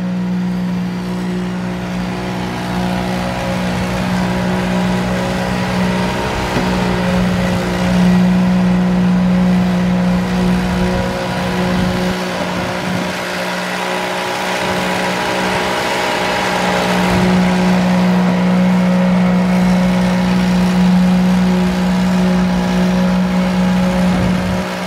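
Concrete pump truck's engine running steadily while it pumps concrete through the boom hose into the wall forms, a constant pitched engine hum that weakens for a few seconds midway and then comes back.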